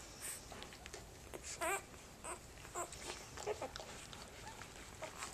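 Newborn puppies squeaking and whimpering as they nurse: several short, high, wavering squeaks, the loudest nearly two seconds in.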